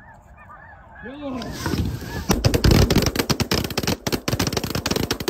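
Snow geese calling, then from about two seconds in a rapid volley of many shotgun shots fired close together.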